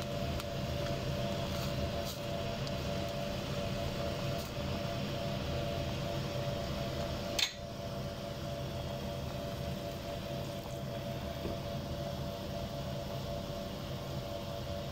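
Diced chicken and vegetables gently sizzling in a pot on the stove, over a steady electric hum from the cooktop. A single sharp click about halfway through.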